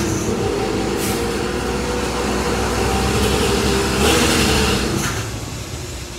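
SYX Moto 50cc two-stroke mini dirt bike engine running, getting louder for about a second around four seconds in, then settling back.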